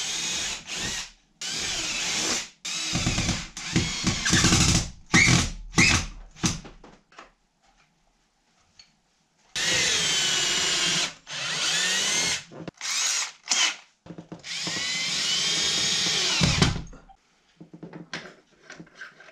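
Cordless drill run in short bursts into a log wall at the flange of an iron pipe shelf bracket, its motor speeding up and slowing down with the trigger. There is a pause of a couple of seconds midway, and the last run is the longest.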